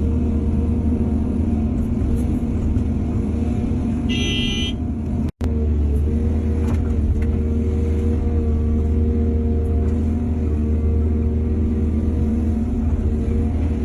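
Heavy diesel earthmoving machinery running steadily with a deep engine drone. A short, high horn-like tone sounds about four seconds in, and the sound cuts out for a split second soon after.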